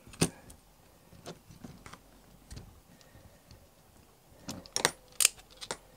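Small clicks and taps of a metal hex key and bolts against a 3D-printed plastic housing as the bolts are screwed in: a sharp click just after the start, scattered faint ticks, then a cluster of clicks about a second before the end.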